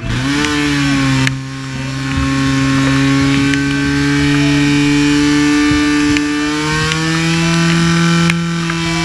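Portable fire-sport pump's engine running flat out, pumping water into the hose line, with a steady high pitch that rises a little about six and a half seconds in and drops away near the end.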